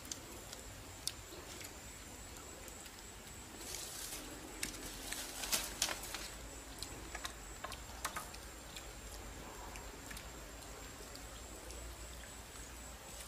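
Scattered small clicks and crackles, with a denser cluster about four to six seconds in, from grilled fish being picked apart by hand, over a faint steady hiss.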